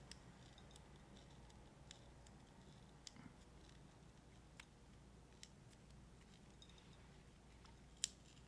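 Near silence with a few faint, scattered clicks and ticks and one sharper click near the end: small handling noises from a ribbon cable being peeled slowly off a display's adhesive.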